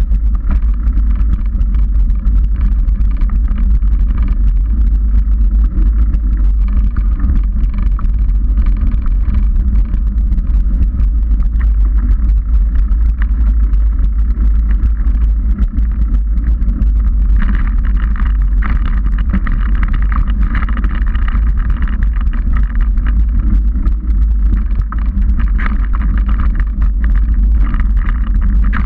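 Steady wind buffeting on the microphone of a bike-mounted action camera, over the rumble of a Trek 29er mountain bike's tyres rolling fast on a dirt trail. The rolling noise grows rougher a little over halfway through.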